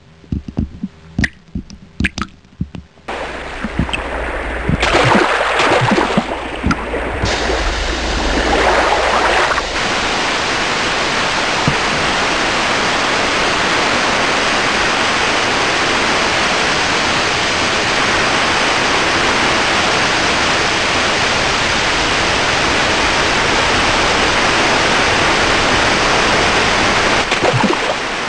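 Rushing white water splashing over rocks. A few separate splashes and drips come first; a low rumble joins about three seconds in, and from about ten seconds in it settles into a steady, even rush.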